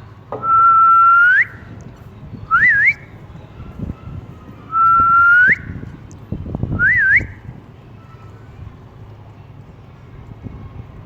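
A parrot whistling a two-part phrase twice: a held note that slides up at its end, then a short up-and-down warble.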